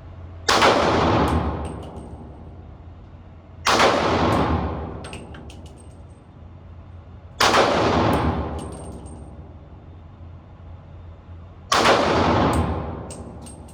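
Four single shots from a Draco AK-pattern pistol, spaced about three to four seconds apart, each with a long echoing tail, and light clinks after each shot.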